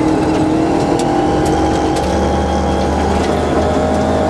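Rally car engine pulling hard at speed, its pitch climbing and then dropping at a gear change about two seconds in. Scattered sharp ticks sound over it.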